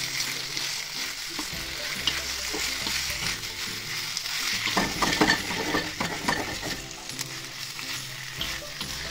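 Onion-tomato gravy sizzling in a wok while a spatula stirs boiled shunali pieces through it, scraping the pan, with a run of sharper scrapes around the middle.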